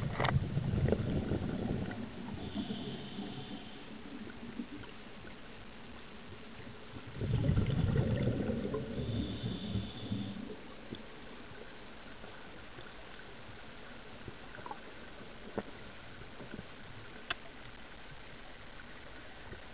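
Underwater sound of a diver's exhaled air bubbles, heard as low rumbling bursts of a few seconds: one at the start and another about seven seconds in. Between them a faint steady hiss with a few scattered clicks.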